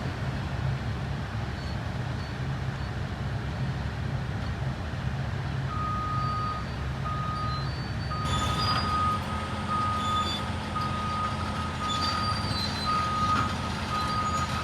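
Heavy construction machinery engines running steadily. From about six seconds in, a backup alarm beeps about once a second as a machine reverses, and a couple of seconds later the machine noise grows louder.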